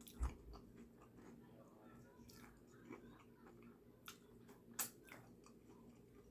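Faint chewing and wet mouth sounds of someone eating a grinder sandwich, with a few soft clicks, the loudest just after the start and another about five seconds in.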